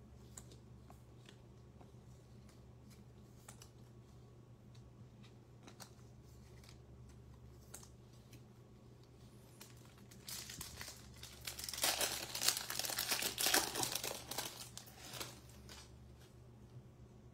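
A Bowman baseball-card pack's foil wrapper crinkling and tearing as it is opened, loudest for about five seconds past the middle. Before that, faint clicks of cards being handled.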